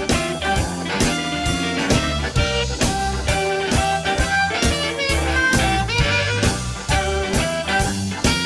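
Instrumental passage of a swing-blues song: a band with drums keeping a steady beat under held melody lines.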